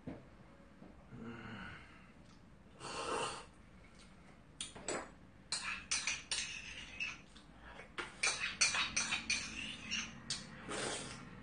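Metal spoon scraping and clicking against the inside of a small ceramic pot in quick irregular strokes from about halfway through, scooping out the last of the porridge. A short breathy noise comes about three seconds in.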